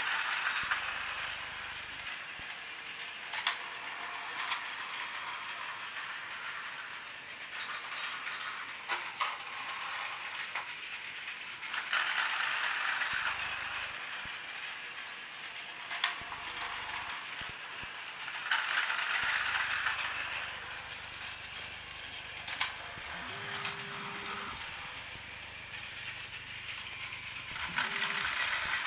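Plarail S-03 300 Series Shinkansen Nozomi battery toy train running on plastic track: the steady whirr and rattle of its geared motor and wheels, swelling each time it passes close, with occasional sharp clicks.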